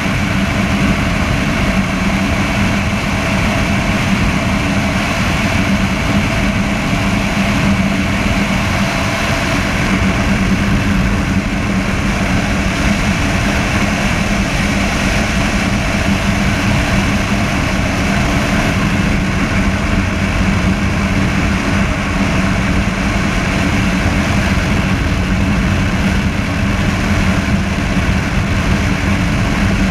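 Honda motorcycle engine running at a steady highway cruise, a constant hum under the rush of wind and road noise. The wind buffets the chest-mounted microphone.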